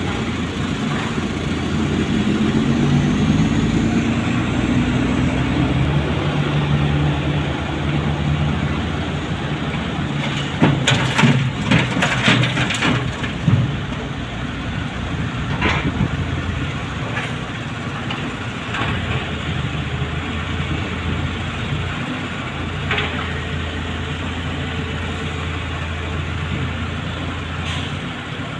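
Volvo wheel loader's diesel engine running, its pitch climbing a few seconds in and then holding steady. A cluster of sharp knocks comes near the middle, with a few more single knocks later.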